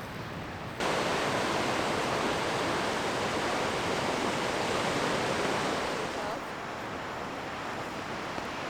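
Ocean surf rushing steadily. It jumps suddenly louder less than a second in and stays loud until about six seconds in, then drops back to a lower rush.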